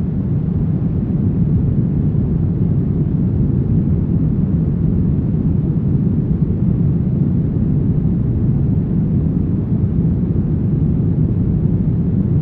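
Steady brown noise: an even, deep rumbling hiss with most of its energy in the low end and little above a few hundred hertz, unchanging throughout.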